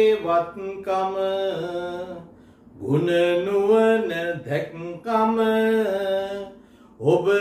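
A man chanting a verse in a sing-song melody, holding long level notes phrase by phrase, with two short pauses, about two seconds in and near the end.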